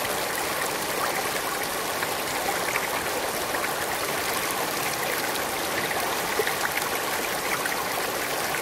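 Shallow stream running steadily over rocks, with small splashes scattered through it.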